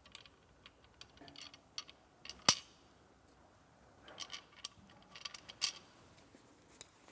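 Small metal clinks and knocks as the carousel's bottom beam and frame parts are handled and set in place, with one sharper knock about two and a half seconds in and a run of clicks later on.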